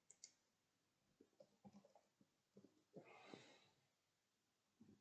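Near silence with a few faint clicks and ticks, and one soft breath about three seconds in.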